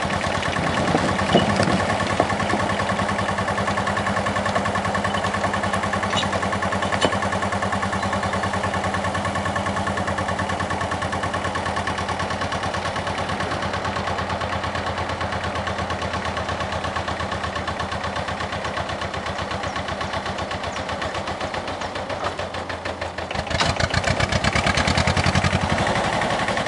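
1953 IHC Farmall DLD2's two-cylinder diesel engine idling with an even chug, with a few metal clanks in the first couple of seconds. About 23 seconds in, the engine is opened up and runs louder as the tractor pulls away.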